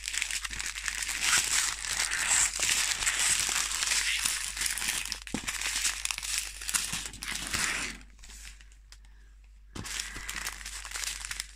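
Small plastic zip bags of diamond-painting drills crinkling as they are handled, with a quieter break of a second or two near the end before the crinkling starts again.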